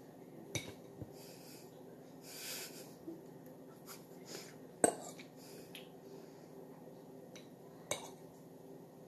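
Metal forks clinking against a dish as pieces of banana bread are cut and eaten: a few sharp, separate clinks, the loudest about five seconds in.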